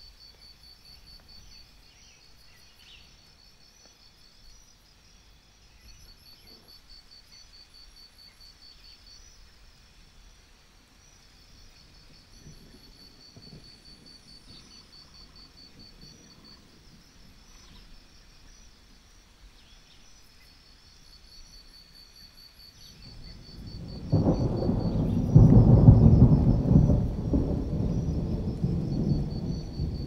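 Crickets chirping steadily, with a rumble of thunder that builds about three-quarters of the way in, peaks shortly after and slowly fades.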